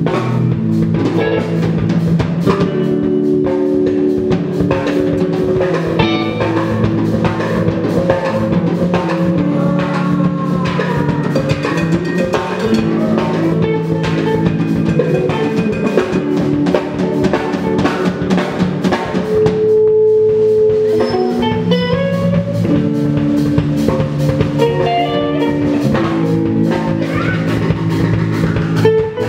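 Live indie rock band playing a song: a drum kit beats a steady rhythm under electric guitars holding and changing chords.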